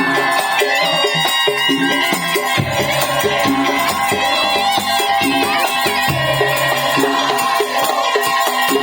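Madurese tong-tong band playing: a fast, steady beat of drums and wooden percussion under a wavering high melody line.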